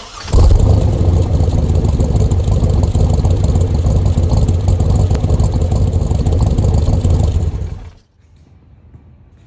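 Loud engine exhaust running with a deep, rapid rumble, cutting off about eight seconds in.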